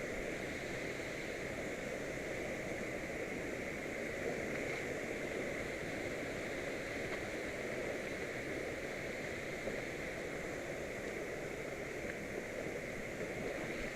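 Mountain river water rushing, a steady, unbroken noise.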